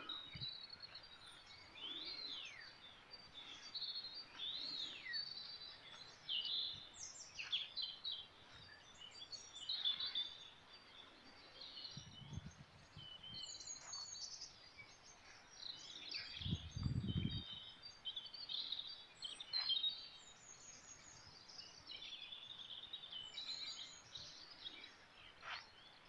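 Several wild songbirds singing and calling at once, a dense overlapping mix of high chirps, trills and whistles. Two brief low rumbles come about halfway through.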